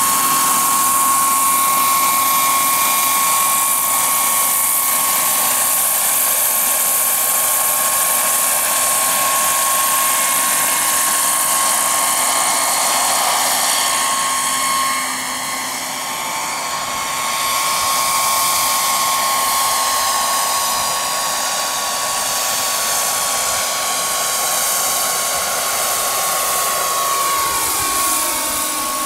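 Scale model Sikorsky S-64 Skycrane helicopter's turbine engine whining steadily with rotor noise as it hovers and flies. The sound dips briefly about halfway through, and the whine slides down in pitch near the end.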